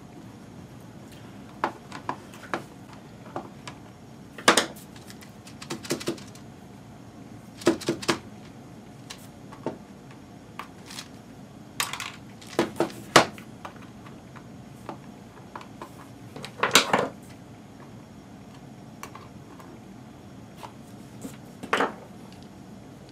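HP-55 calculator's plastic case handled on a tabletop during disassembly: irregular clicks, taps and short scrapes, with a few louder clattering knocks.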